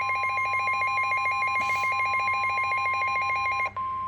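NOAA Weather Radio warning alarm, a steady single tone near 1 kHz. A fast warbling, ringing electronic alert plays over it and stops about three-quarters of the way through, leaving the plain tone. It signals that a warning broadcast, here a severe thunderstorm warning, is about to follow.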